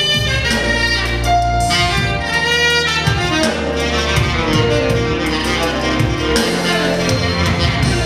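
A saxophone plays a flowing melody over a sustained bass accompaniment.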